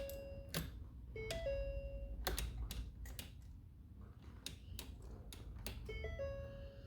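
A short electronic chime of a few notes, rising and then held, sounds three times, with scattered sharp clicks and a low steady hum.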